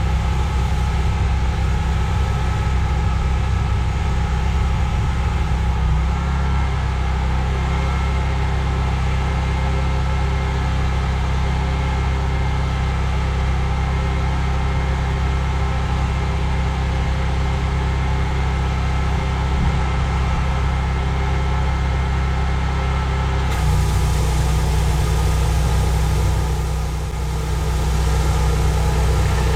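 Gas-engine pressure washer running steadily under load, with high-pressure water spraying; the engine's tone shifts about six seconds in and again near the end.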